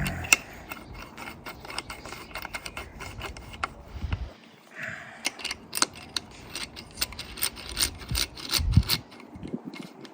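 Repeated short metal clicks and ticks from nuts being run down by hand with a ratchet onto the studs of a Mazda 13B rotary engine, the clicks coming faster in the second half, with a low knock near the end.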